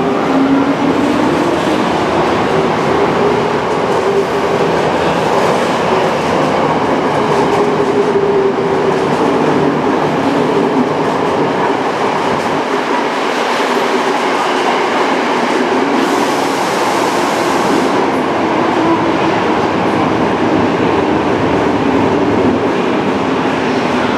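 Tokyo Metro 05 series subway train accelerating out of an underground station and running past along the platform. Its motors give a wavering tone that rises at the start, over the steady noise of wheels on rail. A brief hiss comes about two-thirds of the way through.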